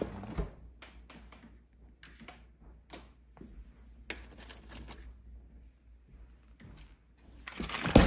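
Refrigerator being opened and items handled on its shelves: a run of small clicks, knocks and rustles, with a louder rustle and knock near the end.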